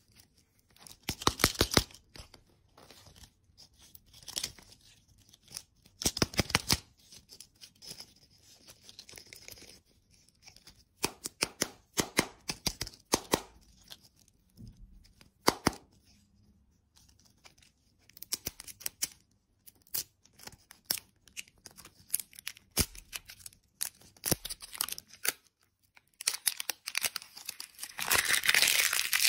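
Printed plastic wrapper of a surprise toy lollipop being picked at and peeled off by hand: scattered bursts of crinkles and clicks, then a longer stretch of crinkling and tearing near the end as the wrapper comes away from the white plastic ball.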